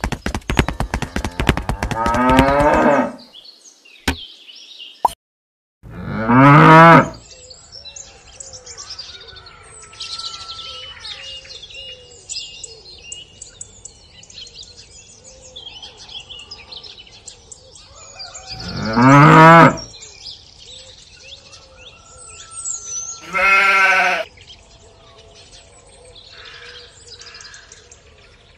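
Cow mooing: three loud calls of about a second each, spaced well apart, after a rapidly pulsing animal call at the start. Faint bird chirping runs between the calls.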